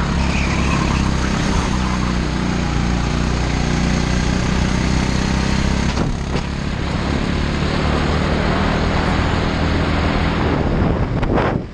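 Racing go-kart engine running hard at speed, heard from on board, with a brief dip in the engine note about six seconds in and a change in pitch near the end as the kart slows and accelerates.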